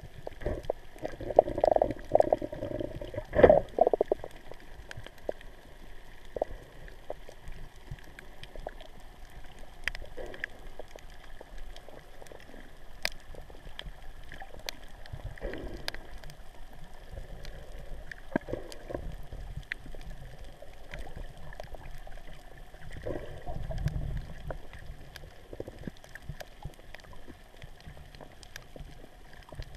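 Underwater audio of water gurgling and bubbling around the camera. It comes in bursts, busiest in the first few seconds, with a sharp knock about three and a half seconds in, and again around the middle and about 24 seconds in. Faint scattered clicks run underneath.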